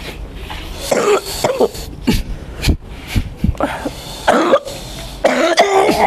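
A person coughing hard and clearing the throat in three rough bouts, with a few sharp knocks in between; the cough is one that has lasted for many years.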